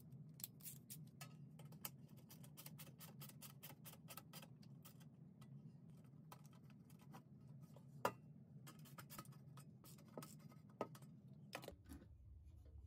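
Faint, rapid clicking of a ratcheting hand screwdriver driving M5 × 20 mm machine screws, in quick runs with a sharper single click about eight seconds in. A faint low hum sits underneath.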